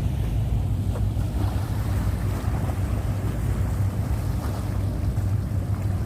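Wind buffeting the phone's microphone: a steady low rumble that flutters unevenly, with a few faint ticks over it.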